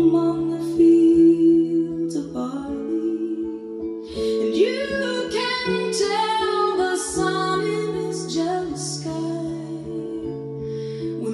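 Recorded song with a singing voice over held instrumental notes, played through Audiowave 171SE bookshelf speakers (Seas WT-171 mid-woofers and Seas 25TFFC tweeters) and picked up by a phone microphone in the room.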